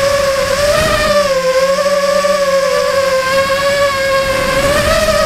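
The electric motors of an FPV model whining steadily, heard from its onboard camera, the pitch wavering slightly up and down.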